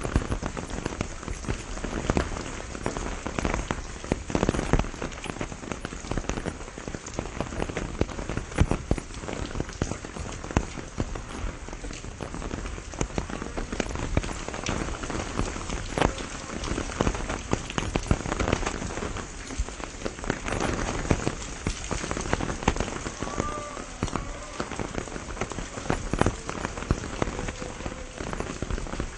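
Steady rain falling, with many individual drops striking close by as sharp, irregular ticks over a continuous hiss.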